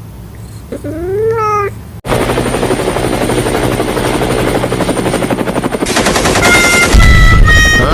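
A cat meows once, then the sound cuts off sharply into a loud, fast rattle like machine-gun fire, with a few short beeping tones near the end.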